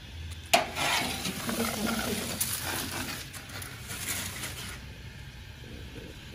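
Tableware handling noise: a sharp clack about half a second in, then a few seconds of irregular rustling and scraping that fade out before the end.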